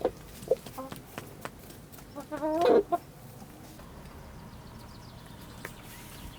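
Chickens clucking: a few short clucks, then one loud wavering squawk lasting under a second about two and a half seconds in, after which only faint yard sounds remain.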